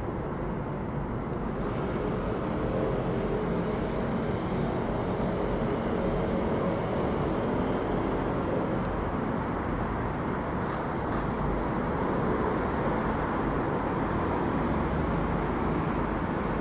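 Boeing 777-200ER passing overhead with its twin Rolls-Royce Trent 892 turbofans at climb power, a steady low jet rumble that builds over the first few seconds and then holds.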